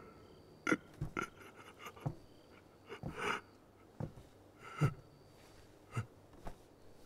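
Quiet human breaths and sniffs with small mouth clicks: a string of short separate clicks and a couple of longer soft breaths near the middle.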